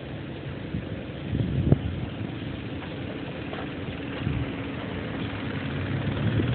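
Low rumble of a child's tricycle rolling along sidewalk concrete, with a sharp knock about a second and a half in. A low, steady engine hum grows louder toward the end.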